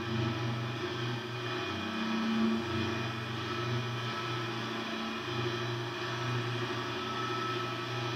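Ghost box radio giving out steady static with a low hum, the hum's pitch shifting every second or so as the box scans.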